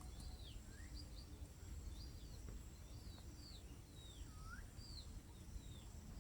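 Faint chirping of small wild birds: short, high notes that sweep downward, repeated every half second to a second, with one lower swooping note about four and a half seconds in, over a low background rumble.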